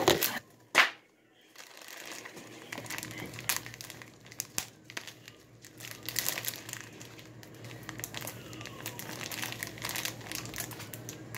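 Plastic bag of frozen breaded chicken strips crinkling and rustling irregularly as it is handled and pulled at to get it open, with two sharp knocks in the first second.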